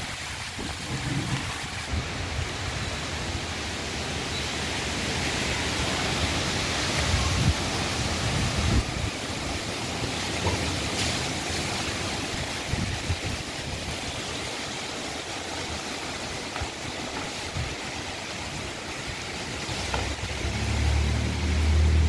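Strong wind blowing in gusts, a steady rushing hiss that swells and eases, with the wind buffeting the microphone in low rumbles, heaviest near the end.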